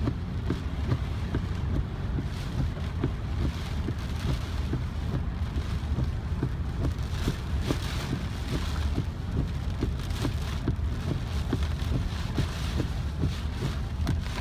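Typhoon wind gusting and buffeting the microphone with a heavy low rumble, mixed with rain and many small ticks. Hissing gusts swell and fade every few seconds.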